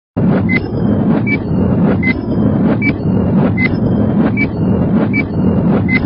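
Countdown intro sound effect: a short electronic beep with a tick about every three-quarters of a second, switching between two close pitches, over a loud steady rumble.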